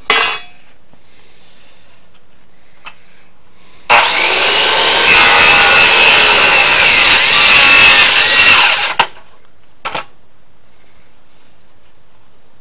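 Power saw cutting through wood for about five seconds. Short bursts of noise come at the very start and again near the end.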